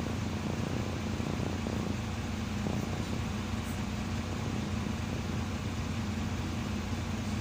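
Diesel engine of a Karosa B 961E articulated city bus, heard from inside the passenger cabin, running with a steady, even hum at constant pitch.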